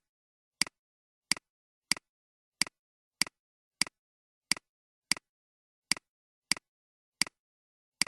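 Computer mouse clicking over and over, about one sharp click every two-thirds of a second, each with a softer tap right after it, and dead silence between the clicks.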